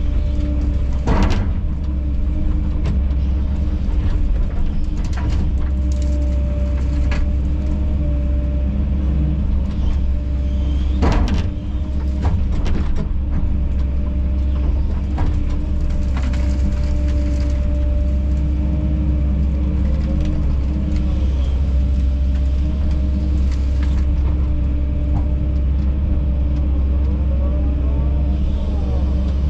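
Kobelco SK210 excavator running steadily, a low diesel drone with a steady hydraulic whine over it. A few sharp knocks break in, the loudest about a second in and about eleven seconds in.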